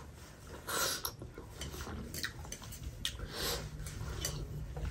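A person eating spicy instant noodles: soft slurps and wet chewing, with a few short hissing breaths through the mouth.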